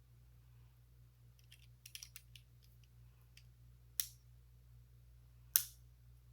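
Plastic Lego pieces being handled and pressed together: a quick patter of small clicks, then two sharper snaps, the louder one near the end.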